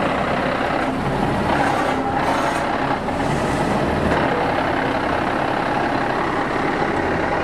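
Tow truck's engine running steadily at close range, a continuous mechanical drone.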